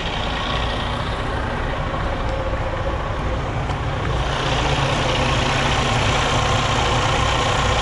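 Freightliner 122SD's diesel engine idling steadily, growing louder from about four seconds in.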